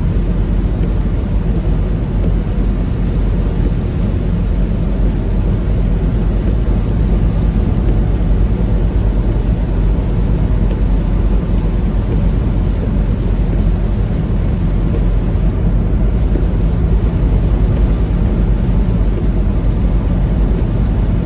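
Semi-truck on the road: a steady low rumble of engine and road noise.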